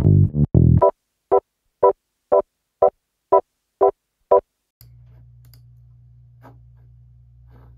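Music from a track being auditioned: a bass line plays briefly, then an organ plays short staccato chord stabs on each beat, two a second, stopping about four and a half seconds in. After that only a faint steady low hum remains, with a couple of faint clicks.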